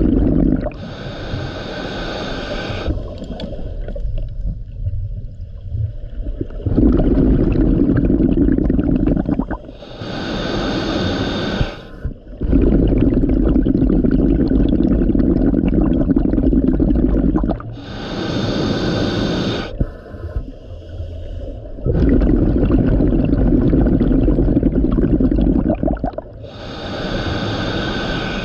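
Scuba regulator breathing heard underwater: four breath cycles, each a short hissing inhalation through the demand valve, followed by a longer low rumble of exhaled bubbles.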